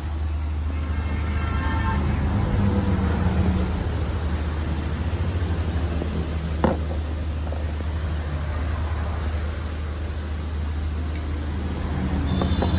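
Steady low motor-like rumble in the background, with one sharp tap about halfway through as the painted aluminium handlebar pieces are handled.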